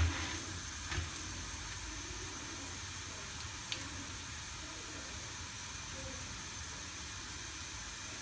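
Popcorn kernels sizzling faintly and steadily in bubbling melted butter in a nonstick pan, still heating with none yet popping. A silicone spatula scrapes the pan lightly at the start and again about a second in.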